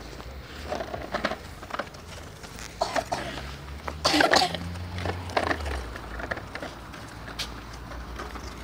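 Scattered scrapes and crunches of a toddler's feet in snow and a red plastic toy shovel handling lumps of coal, the loudest a brief scrape about four seconds in. A low steady hum runs underneath.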